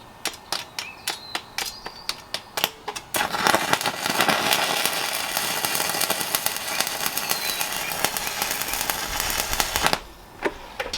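Electric arc welding: a run of sharp ticks as the arc is struck, then the arc catches about three seconds in and crackles steadily for about seven seconds before cutting off.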